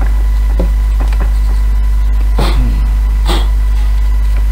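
A steady low hum throughout, with four short breathy noises from the person filming, the two clearest about two and a half and three and a half seconds in.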